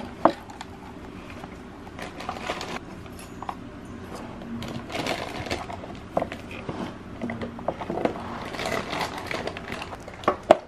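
Handling noises from hard plastic headlight parts and a rubber boot being worked by gloved hands: scattered sharp clicks and knocks with short spells of rustling and scraping as the projector's wires are fed through the back of the headlight bowl.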